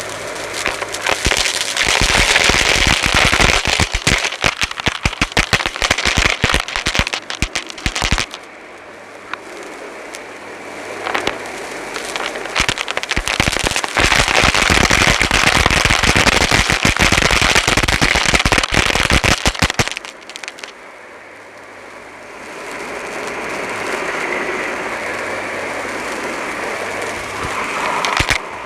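Dyson Light Ball upright vacuum picking up crunchy debris: dense rapid crackling as the bits rattle up through the cleaner head and hose, in two long stretches. Between them the motor runs on steadily with a low hum.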